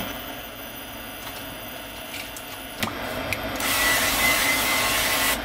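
A hot frying pan sizzling: a loud, steady hiss that starts suddenly about three and a half seconds in. Before it comes a quieter stretch with a single click near three seconds.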